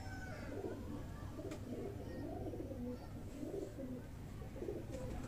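Domestic pigeons cooing: a continuous run of low, wavering coos that rise and fall in pitch.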